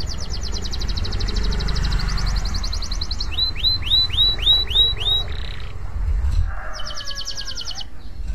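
Domestic canary singing: a fast, high trill for about three seconds, then a run of seven rising whistled notes at about four a second, and a second short trill near the end. A steady low rumble lies underneath.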